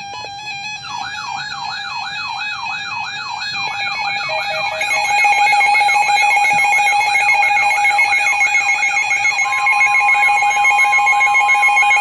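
Several weather alert radio alarms sounding at once, marking a new severe thunderstorm warning: a steady beep tone under a fast warbling siren that sweeps up and down about three times a second. More steady tones join in and the alarm grows louder about five seconds in, and a steady high tone joins near the end.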